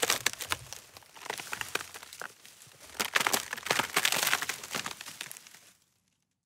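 Dry wood and sticks snapping and splintering: a dense run of sharp cracks and crackles, with louder bursts near the start and again about three to four seconds in, dying away about six seconds in.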